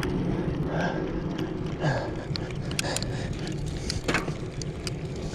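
Mountain bike rolling on asphalt: its tyres humming on the pavement under a low rumble, with scattered clicks and rattles from the bike.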